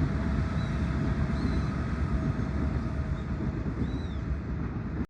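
Steady low rumbling outdoor noise with a few faint, short high chirps, about half a second, one and a half seconds and four seconds in; it cuts off abruptly at the end.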